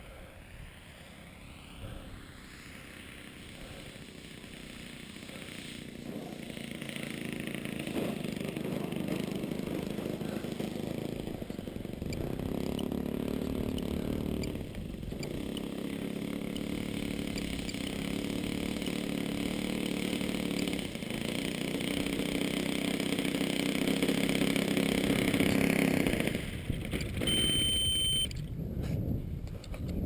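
YS 120 glow engine of an RC aerobatic plane running through a straight pipe, growing steadily louder as the plane comes closer, with brief dips in throttle. Near the end the engine sound falls away as the throttle is cut for the landing.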